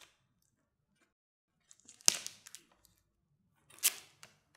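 Plastic protective film being peeled off a new smartphone: two short ripping noises about two seconds apart, the first starting with a sharp snap.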